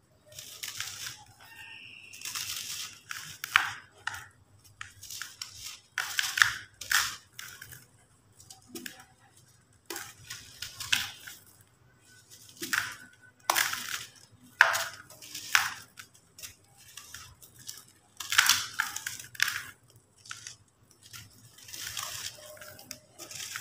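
Dry cement lumps crushed and crumbled by hand into a plastic bucket of loose dust: irregular gritty crunches and crackles, one every second or two, with short quiet gaps between.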